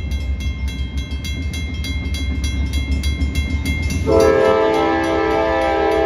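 Grade-crossing bell ringing steadily over the low rumble of an approaching GE AC44C6M diesel locomotive. About four seconds in, the locomotive's Nathan K5LA five-chime horn starts a long blast that is still sounding at the end.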